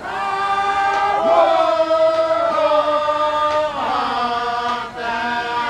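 A group of Anutan islanders singing a traditional chant together for a dance, several voices holding long notes that shift pitch about a second in and again near four seconds.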